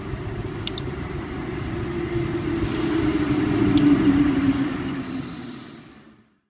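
Low rumbling noise with a wavering hum, a few sharp clicks, swelling about four seconds in and then fading out to silence.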